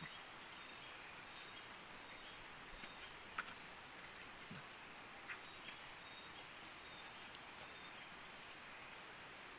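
Faint, steady high-pitched insect buzzing, with a few soft rustles and taps from two puppies play-fighting in dry grass and leaves.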